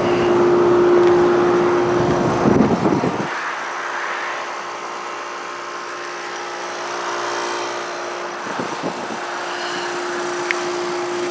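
2016 Ruud Achiever heat pump outdoor unit running in heat mode with its coil heavily frozen: a steady hum with one constant tone from the compressor and fan. Low rumbles come twice, around a third of the way in and again about three quarters through.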